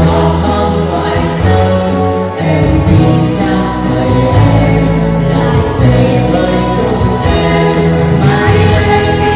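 A group of young voices singing a song together over instrumental accompaniment.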